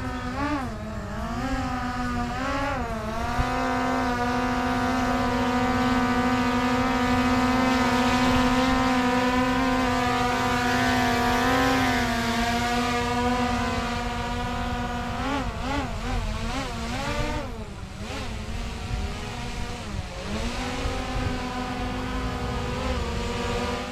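DJI Air 2S quadcopter's propellers whining as it hovers and manoeuvres close by. The whine holds a steady pitch, dipping and rising as the motors change speed a couple of seconds in and again in a run of wobbles after about fifteen seconds.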